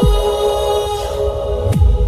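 Electronic background music: held synth tones over deep bass hits that drop sharply in pitch, one at the start and another near the end.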